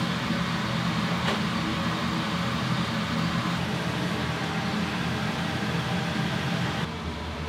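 Steady mechanical hum with a rushing hiss, the kind of noise a restaurant kitchen's burners and extractor fan make. There is a single click about a second in, and the sound drops and changes near the end.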